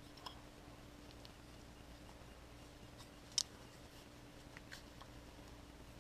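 Very quiet room tone with a faint steady hum, broken by a few light clicks of small metal parts being handled, the sharpest about halfway through.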